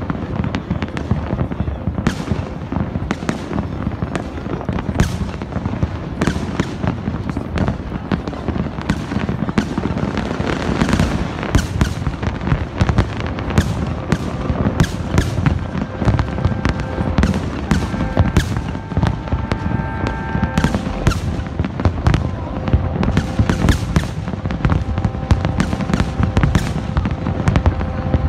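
A large fireworks display going off without pause: many rapid bangs and crackles over a heavy low rumble.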